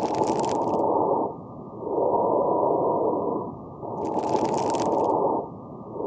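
Stethoscope recording of fine crackles in the lungs: muffled breath sounds that swell and fade with each breath, roughly every two seconds, with a light crackling in them. The crackles are the sign of collapsed small airways and alveoli popping open as air is breathed in, as in congestive heart failure, atelectasis, pneumonia or pulmonary fibrosis.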